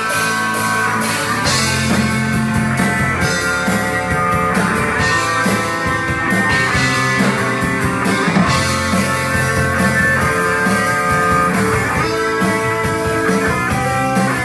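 A doom metal band playing live: electric guitar and bass guitar holding long notes over a drum kit with steady cymbal hits, in an instrumental passage without singing.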